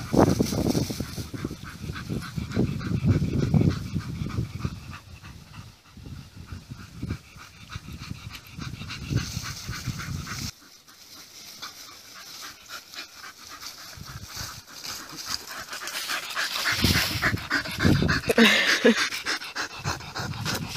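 Bull Terriers panting rapidly and rhythmically after play. The panting is louder in the first few seconds, quieter from about halfway, and louder again near the end when a dog is held close.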